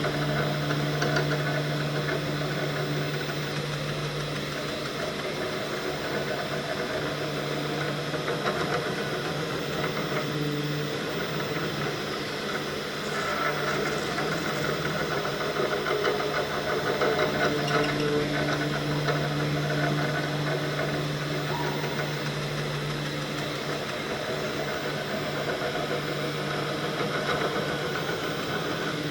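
Three-axis desktop CNC milling machine running, with a steady motor hum and tones that shift and swell for a few seconds in the middle as the machine works.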